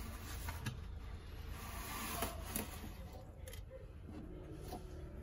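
A wreath of wooden toothpicks being handled and slid across a wooden board: light rustling with a few sharp clicks, dying down after about three seconds, over a low steady hum.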